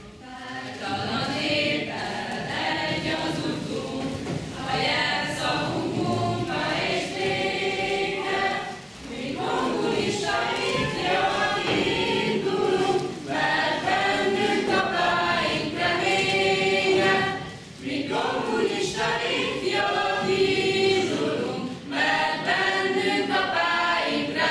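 A choir singing in phrases a few seconds long, separated by brief pauses.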